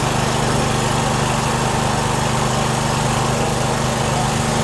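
Small engine running steadily at a constant idle.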